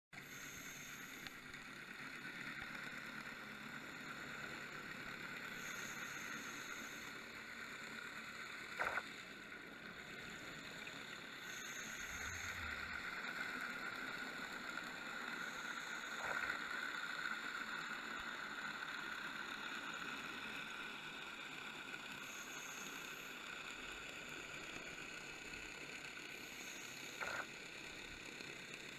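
Underwater ambience picked up by a camera in a dive housing: a steady muffled drone, with a short louder burst three times.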